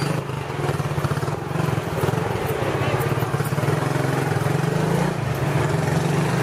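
A small motorcycle engine running steadily close by, with a low, even throb.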